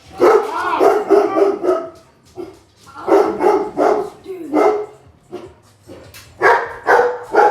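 A dog barking in three bouts of quick repeated barks, with short pauses between them.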